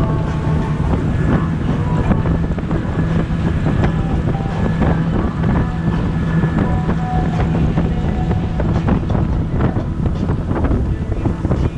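Motorboat engine running steadily with a constant low hum, wind buffeting the microphone over it.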